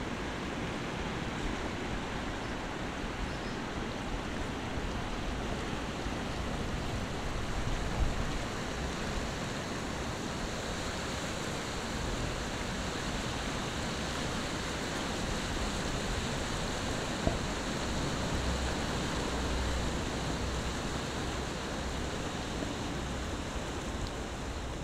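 Fast, swollen river water rushing and churning over rocks: a steady, even rushing noise, with a couple of brief knocks.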